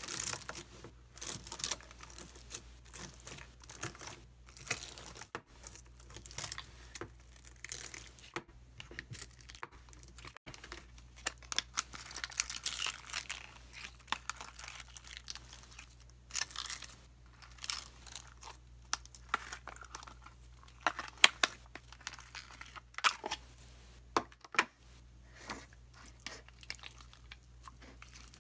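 Clear slime packed with large glittery beads being pressed and pulled apart by hand: a run of irregular short crackles and sticky tearing sounds as the slime stretches and the beads shift.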